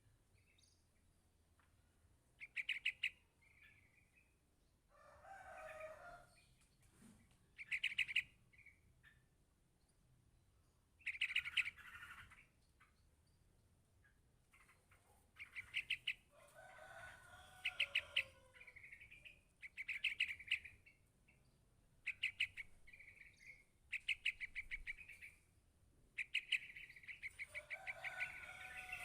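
Young yellow-vented bulbul calling for its parent: short bursts of rapid, chattering pulses repeated every two seconds or so. Three longer, lower, rougher calls come in between.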